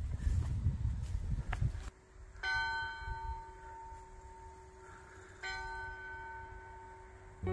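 Church bell tolling twice, about three seconds apart, each stroke ringing on and fading slowly. Before the first stroke there is a low rumble of wind on the microphone.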